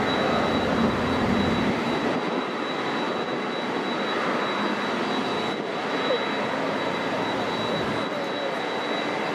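Jet airliner engine noise across the airfield: a steady rush with a thin, steady high whine, its low rumble dropping away about two seconds in.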